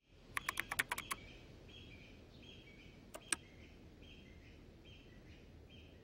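Laptop keyboard being typed on: a quick run of about seven keystrokes in the first second, then two more about three seconds in. Faint, evenly repeating bird chirps run underneath.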